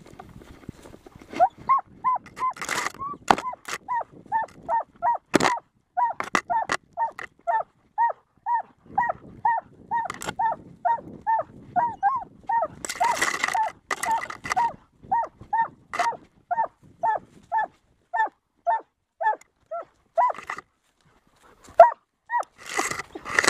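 Haldenstøver (Halden hound) giving tongue in short, high yelps at about two a second, a steady run broken only briefly near the end: the excited cry of a hound that has the fox in sight. Heard close from a camera worn by the dog, with occasional knocks.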